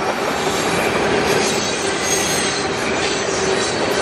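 Freight train cars rolling past, a steady rumble of steel wheels on rail with some high-pitched wheel squeal about halfway through.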